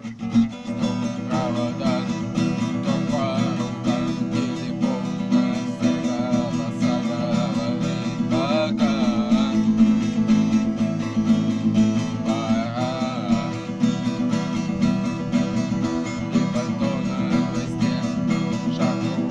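Acoustic guitar strummed in a steady, even rhythm, playing a song's chord accompaniment.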